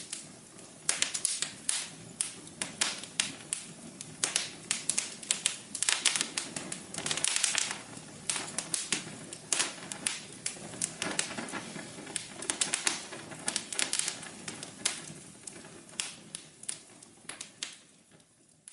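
Wood fire crackling: dense, irregular sharp pops and snaps over a low steady hiss, thinning out and fading near the end.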